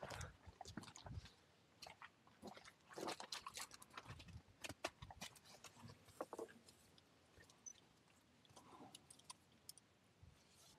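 Faint, irregular crunching with scattered clicks, busiest a few seconds in: a horse chewing.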